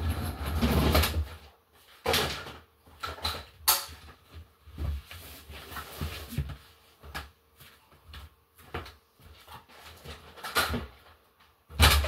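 Handling noise: irregular knocks, bumps and rustles as a phone is moved about and set down, with a low rumbling bump in the first second or so and a loud knock near the end. No vacuum motor is running.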